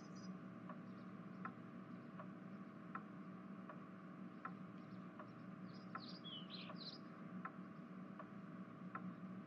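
Faint, even ticking, about one tick every three quarters of a second, over a low steady hum. A short run of bird chirps comes about six to seven seconds in.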